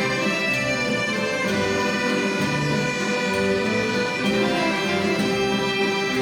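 Instrumental waltz played live, with sustained melody notes over a steady accompaniment.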